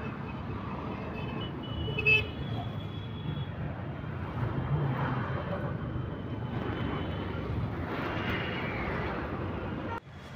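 City road traffic: cars driving past on a flyover, a steady engine and tyre noise. A brief sharp sound with a few high tones comes about two seconds in, and the sound drops away abruptly near the end.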